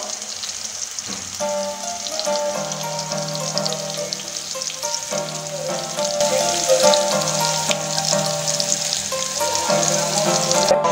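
Chicken leg quarter sizzling as it shallow-fries in oil in a nonstick pan, with a steady fine crackle of spattering oil. Background music comes in about a second in and plays over it.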